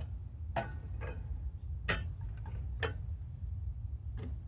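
Stainless steel mess-kit cookware ticking and clinking over a camp stove: four sharp ticks roughly a second apart, over a low steady rumble.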